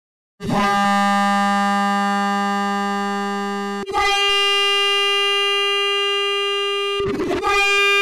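Vital software synthesizer playing a recreation of the 'lobotomy' meme sound effect: a loud, distorted ringing tone that starts about half a second in and holds. It is struck again just before the four-second mark, losing its lowest note, and near the end a short noisy smear comes before it sounds once more.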